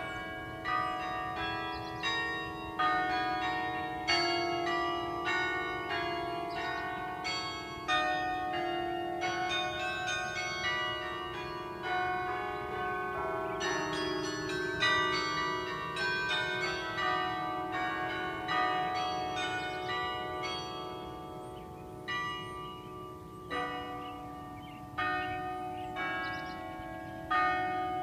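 Carillon bells played as a melody: a run of struck bell notes, each ringing on under the next.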